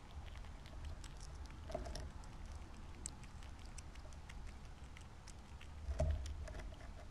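A squirrel foraging in a tray of mixed birdseed right at the microphone: many small irregular clicks and rattles of seed as it digs and eats, with one louder knock about six seconds in over a low steady rumble.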